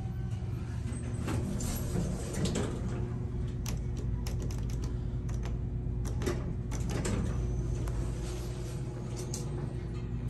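Montgomery traction elevator: a steady low hum with scattered sharp clicks and knocks through the middle, among them the taps of car buttons being pressed.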